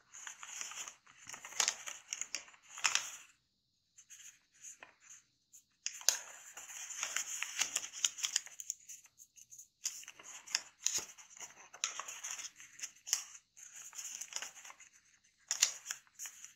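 A square of thin kami origami paper being folded, opened and creased flat by hand: crisp rustling and crackling in bursts, with a pause of about two seconds near the start.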